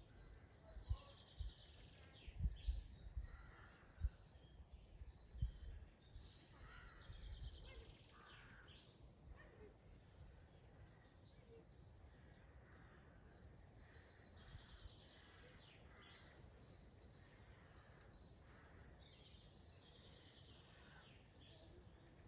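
Several woodland birds singing faintly, with repeated trilled phrases and short calls. In the first six seconds a few low thumps, the loudest sounds here, come over the birdsong.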